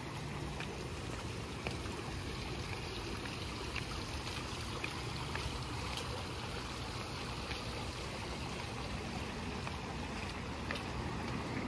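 Steady outdoor rush of flowing water, with a low rumble underneath and a scatter of faint light ticks.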